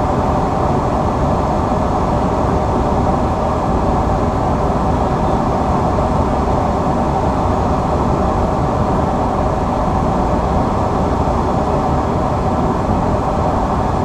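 Steady, loud rushing cockpit noise of an Embraer 175 airliner in flight on final approach, with no change in level.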